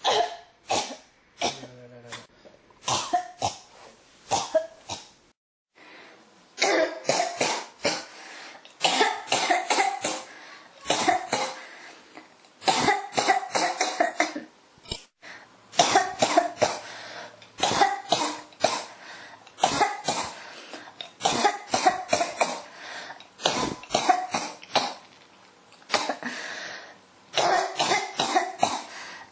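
A person coughing in fits: a few separate coughs first, then from about six seconds in, long runs of rapid coughs one after another with only short breaks between runs.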